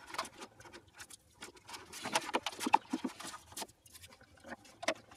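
Irregular clicks and knocks of a plastic welding helmet being handled, hard plastic tapping and rattling in the hands.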